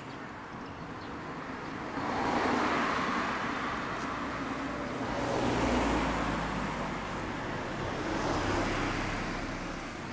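Road traffic going by: three vehicles pass one after another, each swelling up and fading away.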